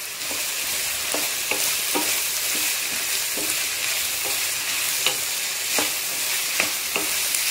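Chopped onions, green chillies, spices and coconut frying in hot oil in a pan, a steady sizzle, while a spatula stirs through them, scraping the pan every half second or so.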